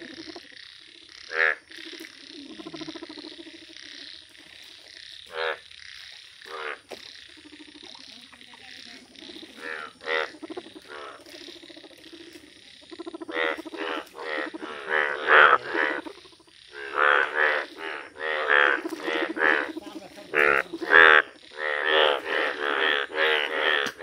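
Indian bullfrogs croaking: short, pitched croaks come singly at first, then from about halfway in crowd into a fast, dense run, over a low steady drone.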